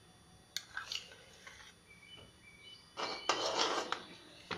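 A spoon clinking and scraping against a metal kadhai as it pushes a lump of ghee around the hot pan: a few sharp clicks in the first second and a half, then a longer scrape about three seconds in.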